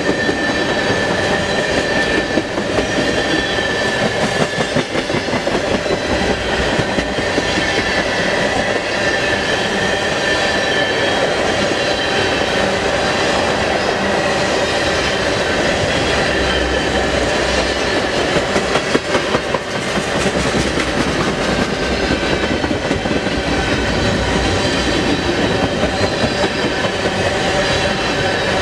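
Freight train of tank cars rolling steadily past close by: a continuous rush of steel wheels on rail, with clicks over the rail joints and a faint high ringing tone in the first several seconds.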